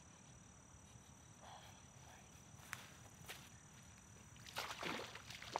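Faint ambience with two short sharp clicks, then about a second before the end a hooked pike starts splashing at the water surface as it is reeled in.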